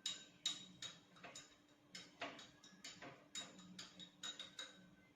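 A spoon stirring a drink in a tall glass, tapping lightly against the glass two or three times a second in an uneven rhythm, each tap with a brief glassy ring.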